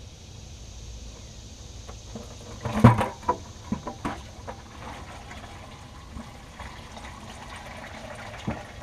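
Engine oil pouring from the drain-plug hole of a Ford 6.4 Powerstroke diesel's oil pan into a plastic 5-gallon bucket, after a few knocks about three seconds in as the drain plug comes free by hand.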